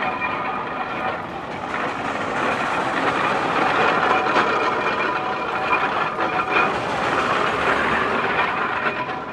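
Antique steam traction engine running, a steady mechanical clatter with steam hiss that grows louder about two seconds in and eases near the end.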